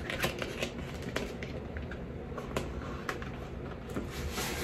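Red cardboard box of an Estee Lauder eyeshadow palette being handled and opened by hand: faint scattered taps and small scrapes, then a brief rustling slide of the sleeve near the end.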